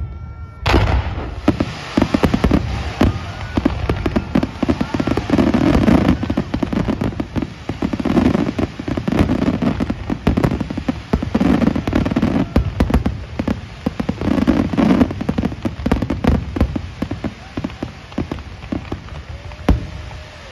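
Fireworks display going off: a rapid, dense run of aerial shell bangs and crackling that starts abruptly under a second in and keeps up without a break.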